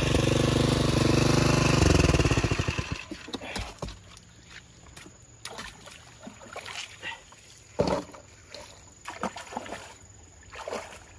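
Small petrol engine of a water pump running steadily, then shut off about two seconds in, its firing slowing to separate beats before it stops. After that, scattered splashes and sloshing of water as someone wades in a muddy puddle.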